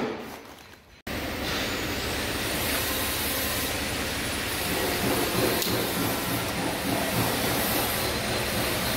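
Music fades out in the first second. Then a steady mechanical rumble with a hiss starts abruptly and holds at an even level.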